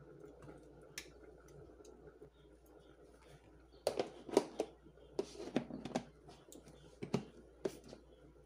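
Clicks and knocks of a plastic food container and its lid being handled, in a cluster from about halfway through. Under them runs a faint steady hum.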